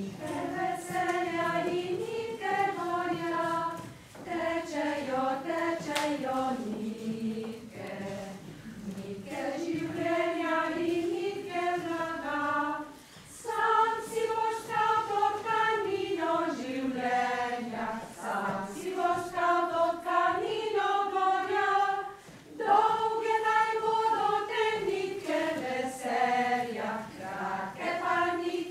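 A small choir singing a song in long phrases, with short breaks about every nine seconds.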